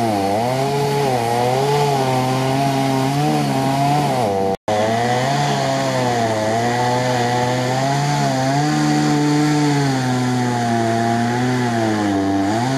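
Off-road vehicle engine running hard at high revs, its pitch rising and falling as the throttle works, with a brief drop-out about four and a half seconds in.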